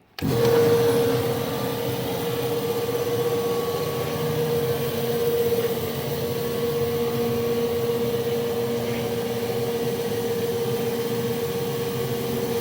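The electric drive motor and oil-filled variable-speed gearbox of a Bode 7.5-tonne welding positioner, running to rotate the table. It starts suddenly and then runs steadily with an even whine over a hum.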